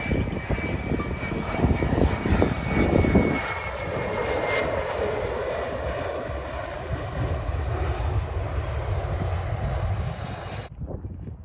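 Fokker 100 airliner's twin rear-mounted Rolls-Royce Tay turbofans: a loud, steady jet roar with a high whine that sags slightly in pitch over the first few seconds. The sound cuts off abruptly about ten and a half seconds in.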